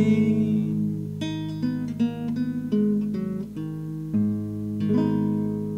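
Nylon-string classical guitar being played, picked notes coming one after another about every half second over held low notes, as picked up by a cheap AKAI ADM-25 dynamic microphone.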